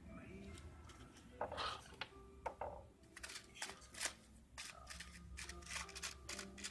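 Scattered light clicks and taps of small hand tools handled on an LED display module as it is prepared for soldering.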